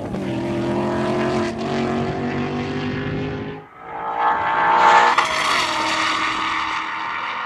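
Tuned high-performance car engine running hard, its pitch dipping just after the start. The sound breaks off for a moment partway through, then an engine comes back in and swells to its loudest about a second later.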